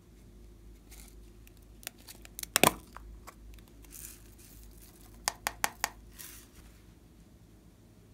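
Small plastic heart-shaped case handled and tipped, with sharp plastic clicks: a loud pair about two and a half seconds in and four quick clicks near the middle. Soft rustles come as loose sequins slide out of it onto the slime.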